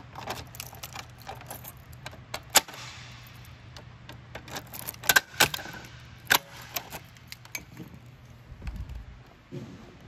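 Notifier dual-action fire alarm pull station being unlocked with a hex key and its front opened: a run of sharp metal and plastic clicks with the rattle of keys, the loudest clicks around two and a half seconds in and again about five to six seconds in.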